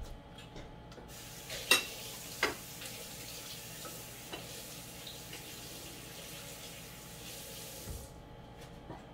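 Kitchen tap running in a steady hiss, turned on about a second in and off abruptly near the end, with two sharp clinks of dishes early on.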